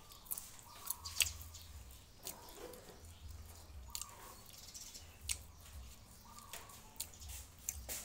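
Chewing and lip-smacking of a person eating with his hands: a string of irregular wet clicks and smacks, with a faint low rumble coming and going.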